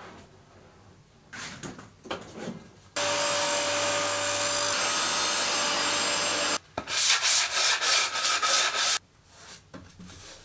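Table saw running as a Swiss stone pine board is fed through the blade: a steady loud run with a held tone that starts about three seconds in and cuts off suddenly past the middle. Then the fresh-cut edge is hand-sanded with a sanding block, about four quick rubbing strokes a second for a couple of seconds.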